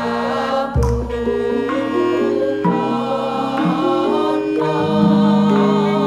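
Javanese gamelan music in slendro scale: sustained metallophone notes moving step by step, with voices singing over them and a deep gong stroke about a second in that rings on.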